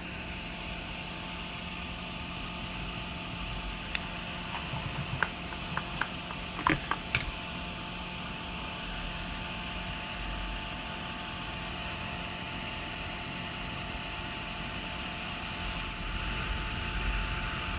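Steady electrical hum and fan-like hiss at a soldering bench. A brief cluster of light clicks and taps comes about four to seven seconds in, as small tools and parts are handled.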